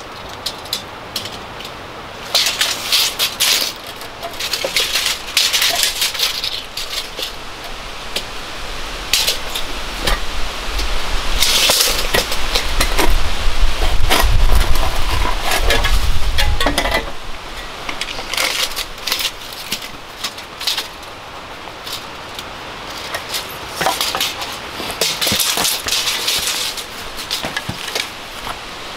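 A shovel is digging into stony, gravelly ground: irregular scrapes and clinks of the blade against stones and gravel. A low rumble swells about a third of the way in and fades a little past halfway.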